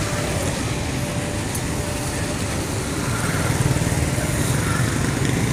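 Motorcycle engine running steadily with street traffic around it, heard from the moving bike. It gets a little louder about three seconds in.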